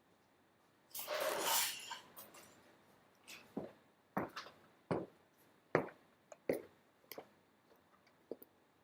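Objects being handled: a scraping rustle lasting about a second, then a run of about eight sharp knocks and clicks at uneven intervals.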